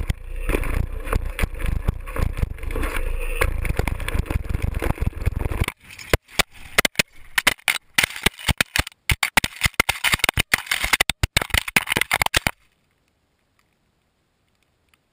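Rumble and rattle of a GoPro riding on a mountain bike down a dirt trail, until about six seconds in the camera falls off. It then tumbles along the ground in a quick run of knocks and scrapes for several seconds, and cuts to near silence as it comes to rest.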